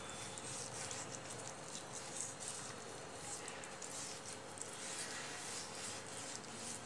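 Damp cloth rubbing and wiping over the wet clay of a freshly plastered mud stove, as a run of faint, irregular soft swishes and squelches.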